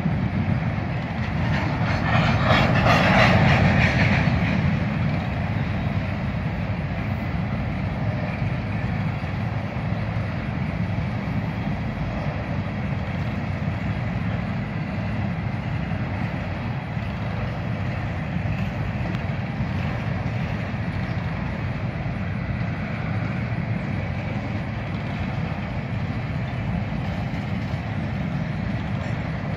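Covered hopper cars of a freight train rolling past, steel wheels rumbling steadily on the rails with a clickety-clack over the joints. A louder, harsher stretch of clatter comes about two to four seconds in.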